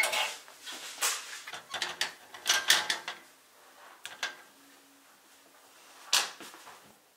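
A series of sharp knocks, clicks and short scrapes of things being handled. They are densest in the first three seconds, with another single loud knock about six seconds in.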